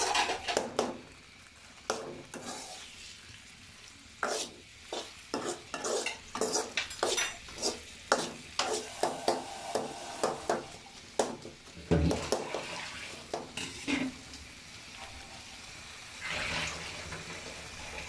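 A spoon stirring and scraping through spiced potatoes frying in a pan, with irregular clacks of the spoon against the pan over a light sizzle.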